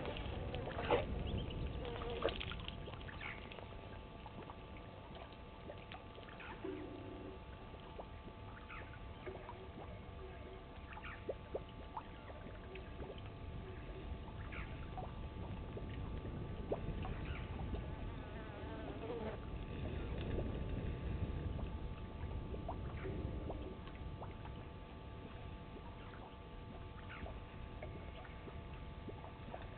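African elephant bull drinking at a waterhole: water dribbles and splashes from its trunk and mouth over a low, rumbling background. Scattered short chirps and clicks come through over a faint steady hum.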